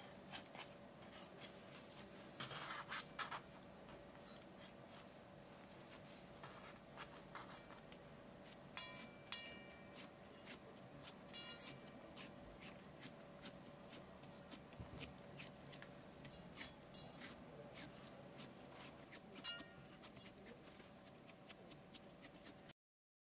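Hands pressing and patting soft bread dough out flat in an aluminium baking pan: faint rubbing and soft pats, with a few sharp clicks against the metal pan that ring briefly, the loudest two about nine seconds in. A faint steady hum runs underneath.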